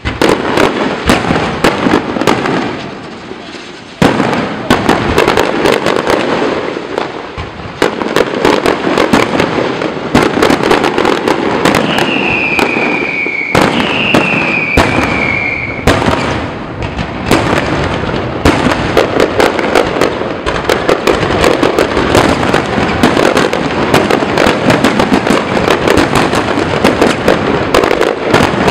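Fireworks display: a dense, continuous barrage of shell bursts and crackling, several bangs a second, with a sharp jump in loudness about four seconds in. Two falling whistles sound one after the other near the middle.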